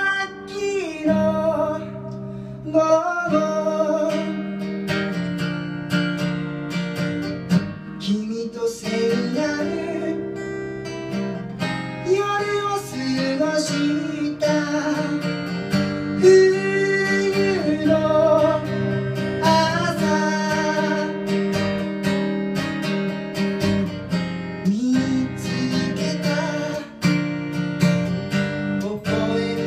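Acoustic guitar strummed steadily as accompaniment, with a man singing over it at the microphone.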